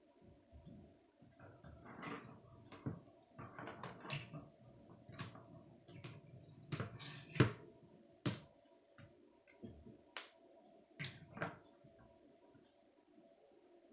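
K'nex plastic rods and connectors being handled and snapped together: irregular clicks and light plastic rattles, the loudest about seven and a half seconds in, over a faint steady hum.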